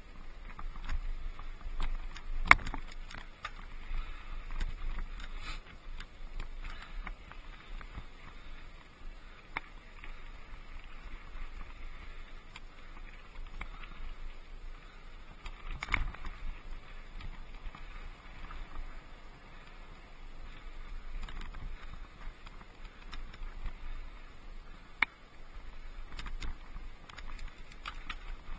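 Mountain bike rolling over a rocky dirt trail: tyres crunching on gravel and the bike rattling, with a few sharp knocks as it hits rocks, the loudest about two and a half seconds in and about sixteen seconds in.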